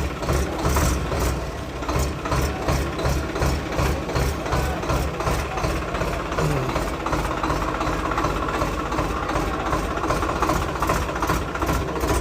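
Swaraj 855 tractor's diesel engine idling steadily with an even knocking beat, about three a second.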